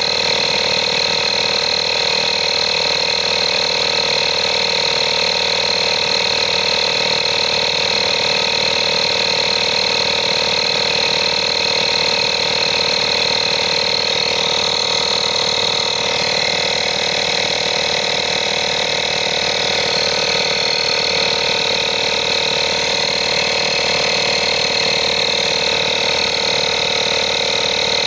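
INGCO digital portable air compressor running steadily while it inflates a tyre: a continuous motor-and-pump drone with a high whine over it.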